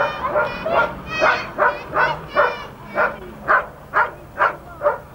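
A small dog barking over and over in short, high-pitched yaps, about two or three a second.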